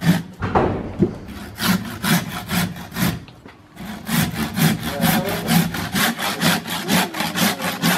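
Butcher's hand saw cutting through a beef bone, rasping back and forth in even strokes. The strokes break off briefly about three seconds in, then resume in a quicker, steady rhythm.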